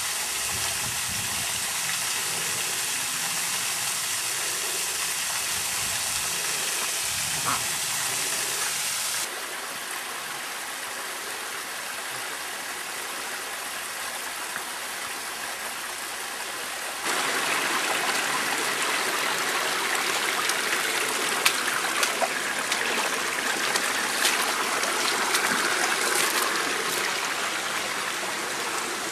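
Steady rushing of flowing water, a stream or waterfall. It drops abruptly a little after a third of the way in and comes back stronger about two-thirds in. Light scattered clicks and ticks come in the later part.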